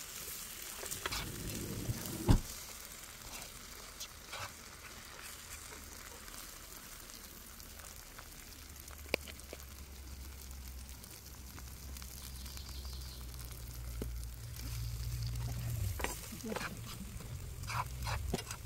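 Eggs sizzling in a nonstick frying pan while a fork stirs them and taps and scrapes the pan, scrambling the broken yolks. A sharp tap of the fork on the pan about two seconds in is the loudest sound. A low rumble rises in the second half.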